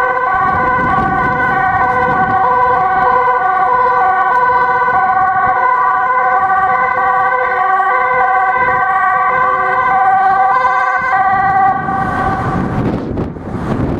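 Sirens of two Dutch ambulances on an urgent run, loud and alternating between two pitches, overlapping each other. They fade out about twelve seconds in, leaving road traffic noise.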